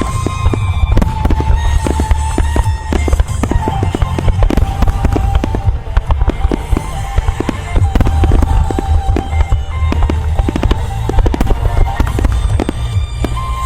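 Starmine fireworks barrage: many shells bursting in rapid succession with deep low rumble, over music with a sustained melody.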